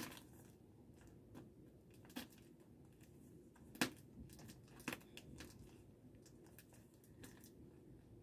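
Scissors cutting into a plastic mailer envelope: a few faint sharp snips and plastic crinkles, the loudest about four seconds in.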